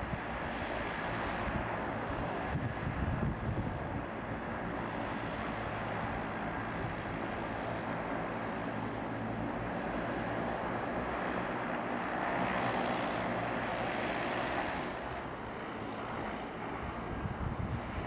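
A twin-engine turboprop floatplane's engines run steadily as it taxis on the water. The sound swells a little about two-thirds of the way through, then eases off.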